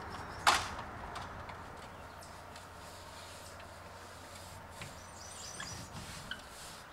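A single sharp knock about half a second in, over a quiet steady outdoor background, with a few faint high chirps about five seconds in.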